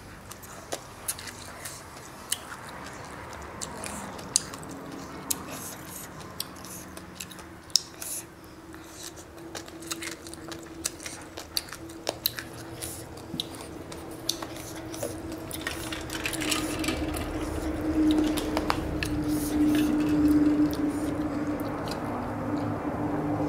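Close-up eating sounds: noodles and shredded green papaya salad slurped and chewed, with many small sharp clicks from chopsticks and mouth noises. A steady hum builds and grows louder in the second half, and near the end she sips from a glass of iced water.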